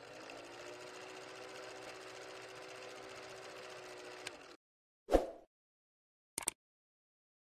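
Film-projector whirr sound effect under a film-leader countdown, running steadily for about four and a half seconds and cutting off suddenly. Then one loud short hit, and near the end a brief double mouse-click sound effect.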